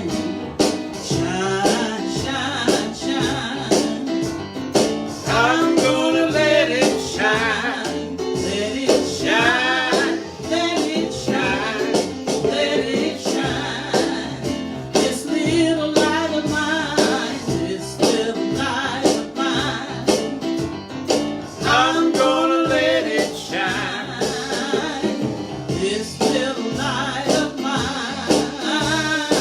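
Gospel praise-and-worship music: singing over instrumental accompaniment with a steady beat.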